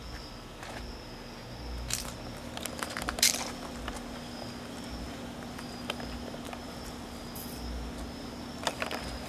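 Night-time outdoor ambience: insects chirring in a high, pulsing drone over a low steady hum, with a few scattered clicks and scuffs, like footsteps, the sharpest about three seconds in.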